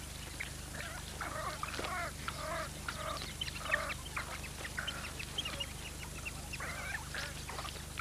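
African wild dog pups giving many short, high-pitched twittering squeals, close together and irregular: begging calls at a meal of meat regurgitated by the adults.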